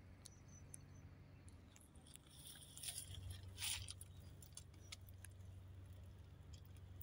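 Near silence: a faint low hum with scattered light clicks, and a brief rustle about three seconds in as the camera is moved.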